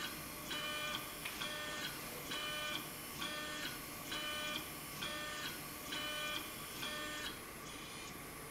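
Stepper motors of RepRap 3D printers, run by 64-microstep drivers, whining through a series of short back-and-forth moves, about one every 0.7 seconds, quiet and smooth. The moves stop about seven seconds in, leaving a faint steady hum.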